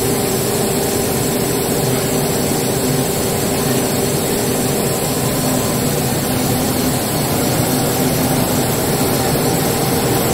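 Steady running noise of a BOPP tape coating machine line: a continuous mechanical hum with several steady tones over an even hiss, unchanging throughout.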